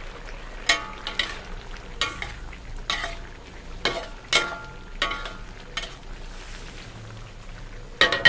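Metal spatula scraping and clinking against a metal wok as a chicken and chayote coconut curry is stirred, a stroke or so every second with the loudest clatter near the end. The curry simmers underneath.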